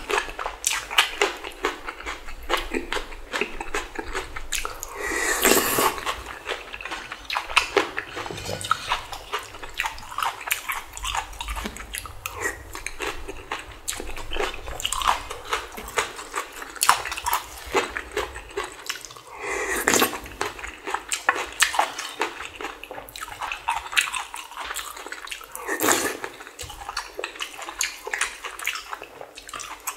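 Close-miked eating: continual chewing and smacking of spicy Shin Ramyun noodles with bean sprouts, with a few louder bursts about five, twenty and twenty-six seconds in.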